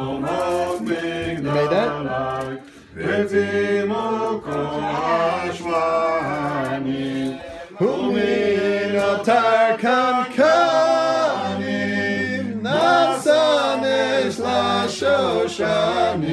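A group of voices, adults and children, singing a Hanukkah song together.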